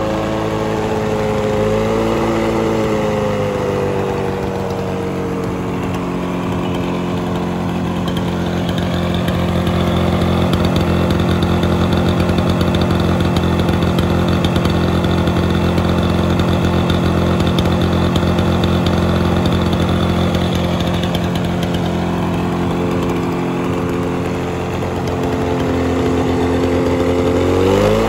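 2004 Lawn-Boy 22260 Commercial mower's 6.5 hp two-cycle Duraforce engine running at speed while cutting grass. Its pitch sags and picks up again a few times under the cutting load, holds steady through the middle, and rises near the end.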